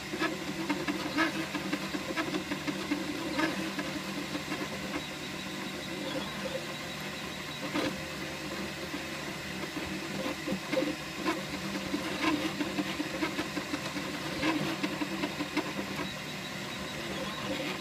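Flashforge Dreamer 3D printer running a print: its stepper motors whir in shifting tones as the nozzle moves back and forth laying down layers, over a steady hum.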